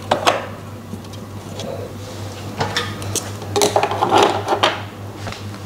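Hands handling a DTG printer's parts: a few light clicks, then a cluster of plastic knocks and rattles about three and a half seconds in as the blue plastic side cover is fitted into place, over a steady low hum.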